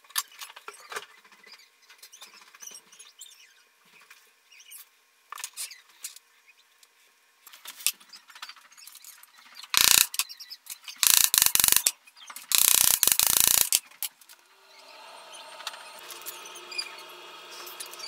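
A jeweller's hand file scrapes in faint, scattered strokes on a small silver part, then a small hammer taps rapidly on the part against a steel block in three loud runs of strikes, the loudest sound. A steady hum comes in near the end.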